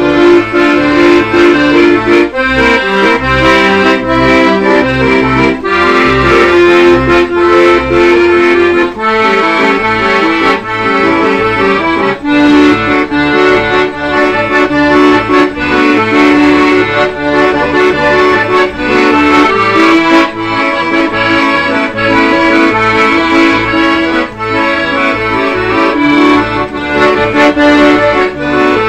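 Instrumental background music: a melody in sustained held notes over a steadily pulsing bass line.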